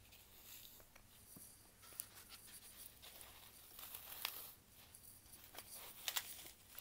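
Green floral foam crushed and crumbled between the fingers: faint, crisp crackling and crunching, with sharper cracks about two seconds in, around four seconds and again near the end.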